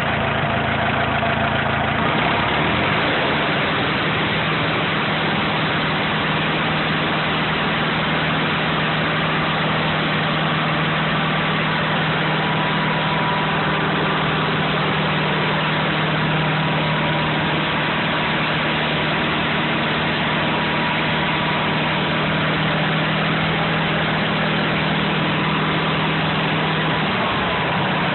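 Stump grinder's 35 hp Wisconsin W4-1770 four-cylinder engine running steadily with the cutter wheel engaged in gear through its belts. The engine note changes about two seconds in and shifts slightly again near the end.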